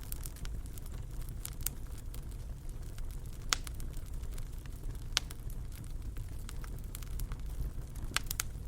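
Wood fire crackling in a fireplace: a steady low rumble with scattered sharp pops, the two loudest about three and a half and five seconds in.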